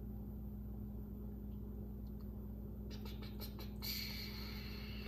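Steady low hum, with fresh lime juice pouring from an upturned bottle into a metal jigger: a thin trickling hiss with a few small clicks starting about three seconds in.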